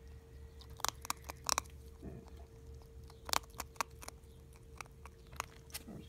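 Ferret crunching dry kibble: sharp, irregular crunches in small clusters, with pauses between them.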